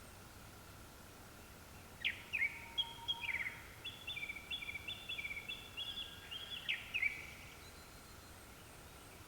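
Japanese thrush singing one phrase of quick, clear whistled notes, several short notes repeated in a row, starting about two seconds in and ending after about five seconds.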